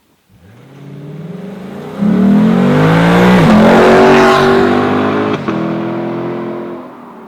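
Sports car engine accelerating hard, its note climbing in pitch, with an upshift about three and a half seconds in. It then holds a steady note and fades near the end.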